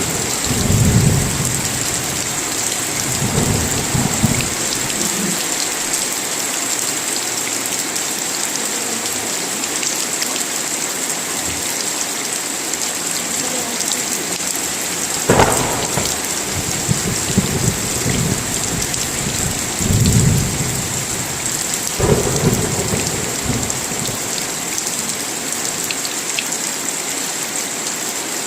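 Steady heavy rainfall with rolls of thunder rumbling every few seconds, and one sharper thunderclap about halfway through.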